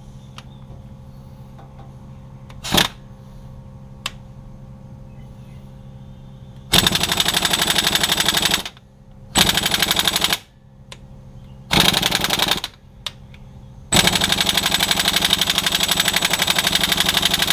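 Harbor Freight Earthquake air impact wrench hammering on a seized bolt. There is a brief blip about three seconds in, then four bursts of rapid hammering starting about seven seconds in; the last and longest runs about three and a half seconds.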